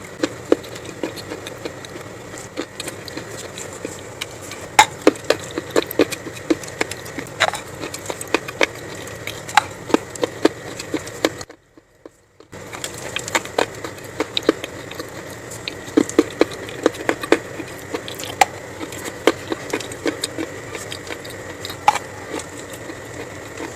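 Dry clay being bitten and chewed close to the microphone: a quick, irregular run of sharp crunches and cracks, broken by about a second of silence halfway through.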